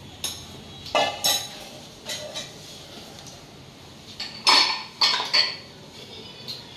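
Metal kitchen utensils clinking and knocking in a scattered series of sharp, ringing strikes, loudest about four and a half to five and a half seconds in.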